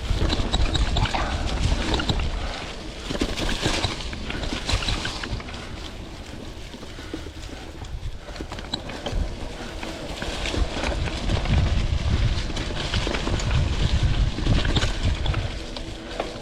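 Vintage Klein Attitude Comp mountain bike being ridden on a dirt singletrack: tyre noise and frequent clattering knocks from the bike over bumps, with wind rumbling on the microphone in surges.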